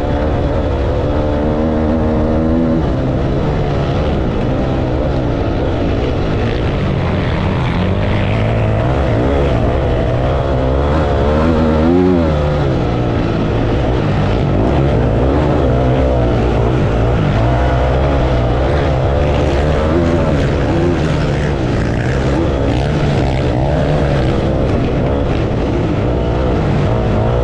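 Dirt bike engine under hard riding, heard close up from a camera mounted on the bike, its revs rising and falling again and again, with a sharp rise and drop about twelve seconds in.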